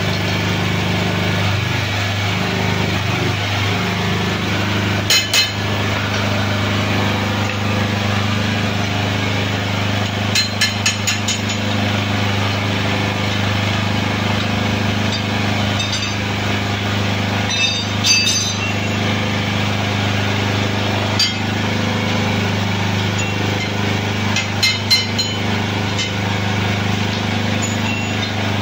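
Hydraulic forklift tire press running with a steady low hum while a solid tire is pressed down on its lock-ring rim. Scattered sharp metallic clinks from the steel lock ring and rim, including a quick run of them about ten seconds in.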